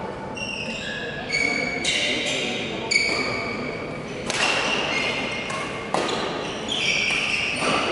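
Badminton rally: several sharp racket strikes on the shuttlecock, with many short high-pitched squeaks of court shoes on the floor.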